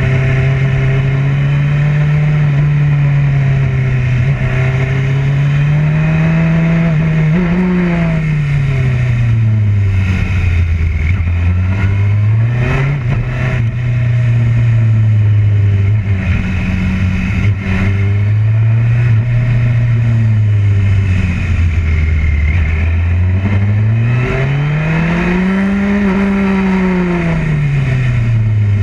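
Motorcycle engine running hard, heard from on board the bike. Its pitch climbs and falls repeatedly as the rider accelerates out of corners and backs off into them, over a steady rush of wind.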